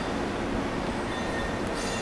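JR West 683 series electric express train pulling slowly away from a station platform, a steady low running rumble with faint motor tones. A brief high-pitched squeal comes near the end.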